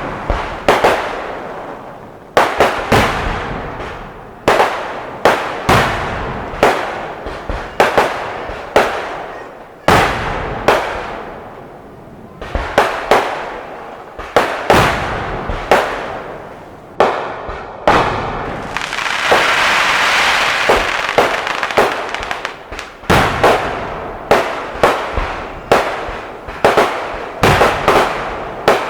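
Fireworks display: shells bursting in rapid, irregular succession, sharp bangs each trailing off in an echoing decay, often several a second. About two-thirds of the way through, a few seconds of continuous hissing crackle take over before the bangs resume.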